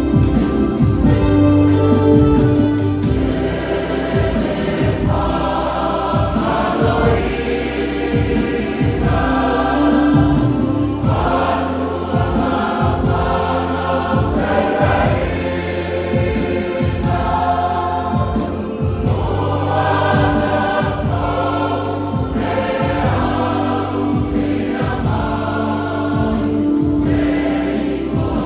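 Church choir singing a Samoan hymn, many voices together, over steady held low notes and a regular beat.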